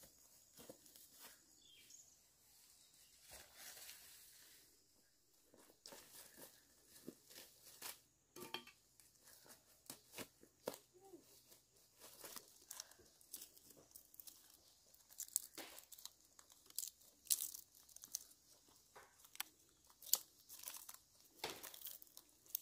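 Dry leaves and undergrowth crackling and rustling as someone steps through them and handles ant nests and bamboo strips, in irregular sharp crackles and snaps. The crackling is sparse at first and grows denser and louder about halfway through.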